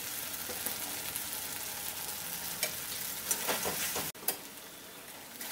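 Poppy-seed paste sizzling in hot mustard oil in a kadai while a spatula stirs it, with a few scrapes against the pan in the second half. The sizzle drops suddenly quieter about four seconds in.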